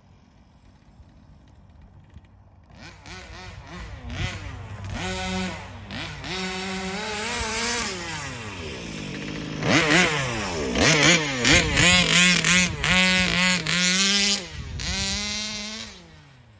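Baja 5B 1/5-scale RC car's gasoline two-stroke engine revving up and down as the car is driven, faint for the first few seconds. It is loudest around the middle with quick throttle blips, then drops away near the end.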